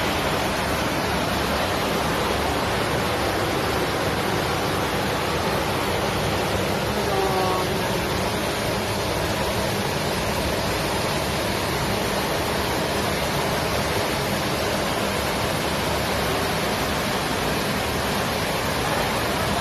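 Flash floodwater rushing in a torrent through a city street: a steady, unbroken rushing noise of churning water.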